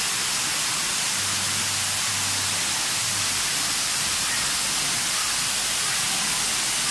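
Steady rushing hiss of water churning in a shallow bubbling pool feature.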